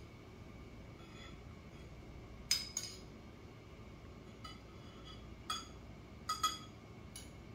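A metal spoon clinking against a small glass bowl and a plate while tomato sauce is spooned out: about seven light, separate clinks with a short ring, the first about two and a half seconds in.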